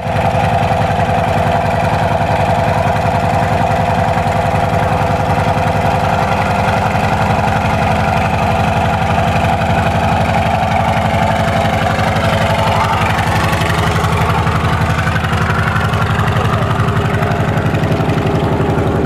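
Antonov An-2 biplane's nine-cylinder radial engine idling on the ground, a steady, loud, pulsing drone with the propeller turning.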